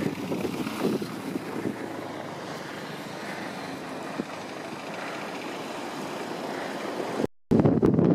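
Wind buffeting the microphone over a steady outdoor hiss, with a car driving by on a snow-covered road in the first second. The sound cuts out for a moment near the end, then loud wind buffeting returns.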